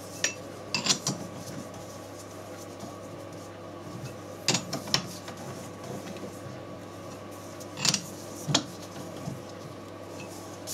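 Chuck key working the jaw screws of a four-jaw lathe chuck as each jaw is nipped up in turn, while the chuck is turned by hand. There are short metallic clinks, in pairs about every three and a half seconds, over a steady low hum.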